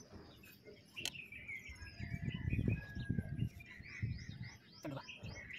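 Small birds chirping repeatedly, with short descending whistles, and a sharp click about a second in.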